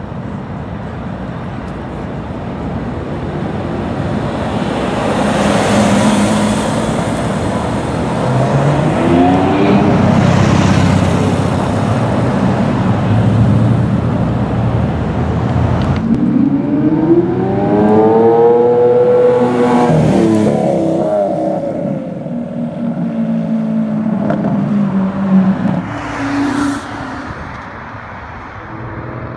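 Sports cars accelerating away and driving past one after another, engines revving hard. Twice the engine pitch climbs and then drops as a car goes by.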